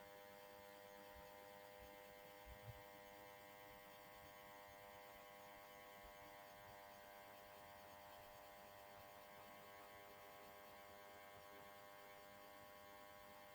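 Near silence: a faint steady electrical hum, with one soft click about two and a half seconds in.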